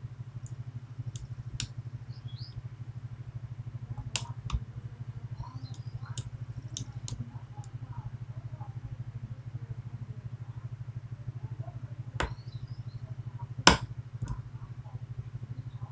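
Sharp, irregular clicks and ticks from lock picks working the pins of a Medeco biaxial lock, the loudest near the end, over a steady low pulsing hum.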